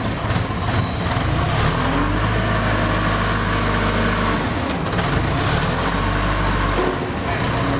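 Skid steer loader's engine running under varying load, its pitch shifting a few times as the machine works.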